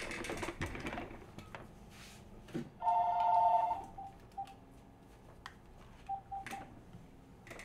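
Telephone ringing: one two-tone ring lasting about a second, starting about three seconds in, followed by a few short beeps and some faint clicks.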